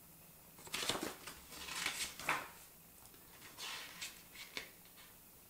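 Paper rustling as the pages of a printed booklet are handled and turned, in several short rustles with quiet between them.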